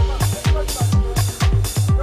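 Background music: an upbeat electronic dance track with a deep kick drum about twice a second and steady hi-hats.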